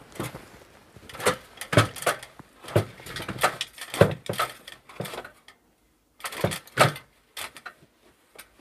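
A series of irregular knocks and clatters from handling hard objects, with a short quiet gap about six seconds in.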